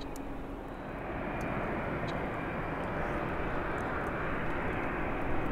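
Airliner engines running, a dense rush of engine noise that grows louder about a second in and then holds, with a faint steady whine on top.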